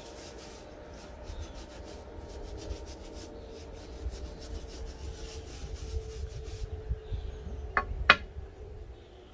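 A brush scrubbing a soapy mesh sneaker in repeated rasping strokes. Two sharp knocks near the end, the second the loudest sound.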